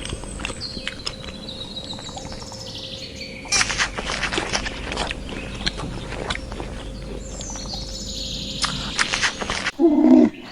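A bird calling: two long calls, each falling in pitch, a few seconds apart, with sharp clicks over an outdoor background hiss. Near the end a different, lower, pulsing animal sound cuts in.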